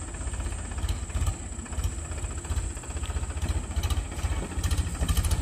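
Powertrac Euro 50 tractor's three-cylinder diesel engine running at low revs as the tractor moves slowly over the field, a steady low pulsing beat with some light clicks and rattles.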